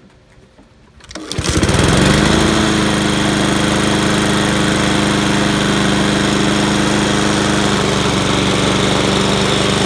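Honda GCV160 single-cylinder mower engine on a Husqvarna HU700H starting about a second in and settling into a steady, even run. It runs smoothly after a carburetor cleaning.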